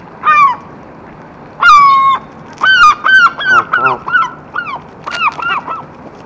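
Geese honking: a short call at the start, a long held honk about a second and a half in, then a quick run of shorter honks.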